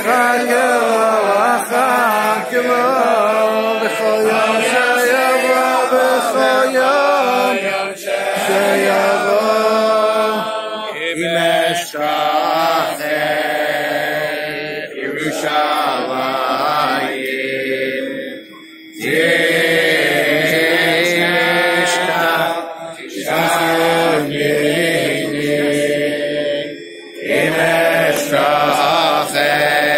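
A large group of men chanting a slow song together, with brief breaks between phrases.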